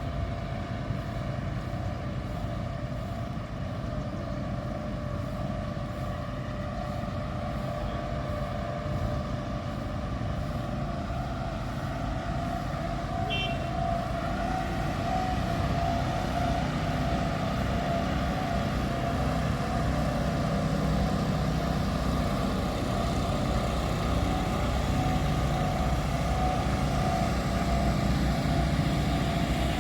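An engine running steadily: a continuous low drone with a steady hum on top, growing slightly louder over the stretch.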